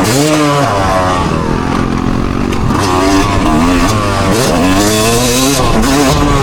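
A loud vehicle engine revving through its exhaust, rising in pitch about a second in and again several times, with the pitch falling back between revs.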